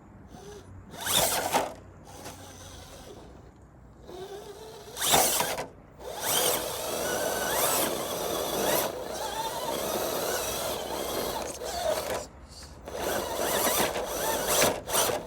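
Electric RC crawler's motor and geared drivetrain whining under throttle: two short blips in the first five seconds, a long steady pull from about six to twelve seconds with the pitch rising and falling, then quick pulses of throttle near the end.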